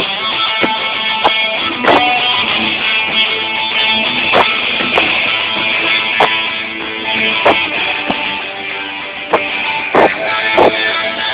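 Live rock band playing an instrumental passage: strummed guitars over a steady chord, punctuated by sharp drum hits every second or so.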